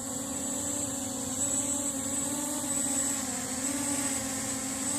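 Blade 200 QX quadcopter's rotors running with a steady whining hum, the pitch wavering slightly up and down as the throttle shifts.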